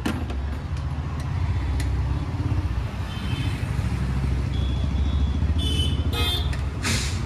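Steady low engine rumble of passing road traffic, with short vehicle horn toots about halfway through and again later.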